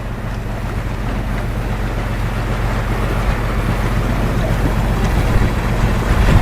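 A boat's engine running steadily, with a low, even drone that slowly grows louder. It cuts off suddenly at the end.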